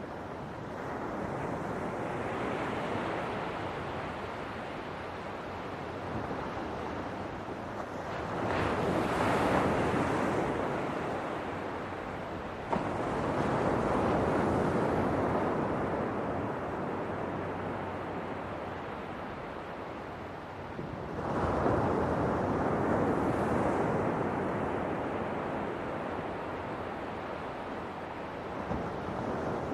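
Ocean waves surging and breaking on a shore, a steady rush of surf that swells louder and fades again several times.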